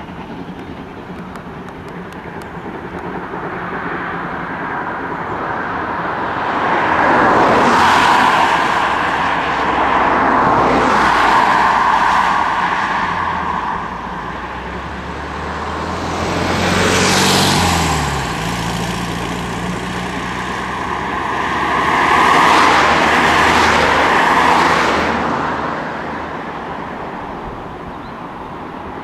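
Road traffic passing close by: about four vehicles go by one after another, each rising and fading, and one has an engine note that drops in pitch as it passes.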